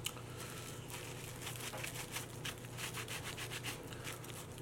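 A paper napkin rubbing and rustling over a lemon pepper chicken wing, wiping off seasoning he finds too salty. Small irregular clicks of handling and chewing run through it, over a low steady hum.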